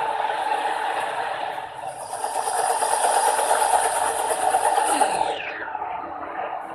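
A ring of box fans and a kerosene fire tornado make a steady rushing roar that grows louder about two seconds in. About five seconds in, the sound drops away with a falling pitch, leaving a quieter, duller rush.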